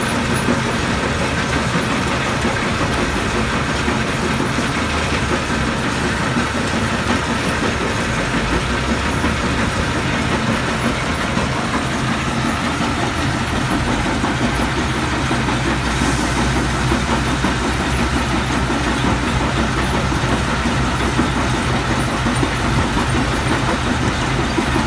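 Heavy machinery at a stone-crushing site running steadily: a low engine drone under a continuous rattle.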